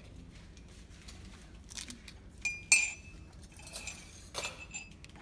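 Ceramic mugs and a metal spoon clinking: a few light knocks, with one brighter, ringing clink about halfway through.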